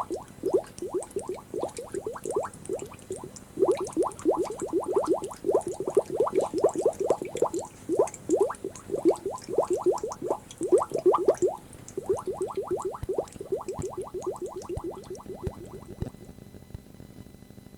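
Bubbling, gurgling water sound effect: quick rising blips in bunches, several a second, that stop about two seconds before the end, leaving faint tape hiss.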